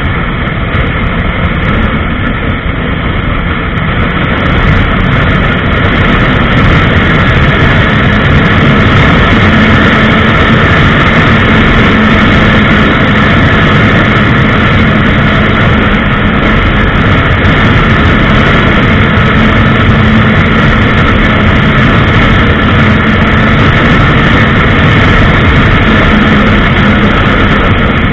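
Honda CBR1000RR sportbike's inline-four engine running at highway speed under a heavy rush of wind on the onboard microphone. It gets louder about four to five seconds in as the bike speeds up, then holds steady with a low engine drone.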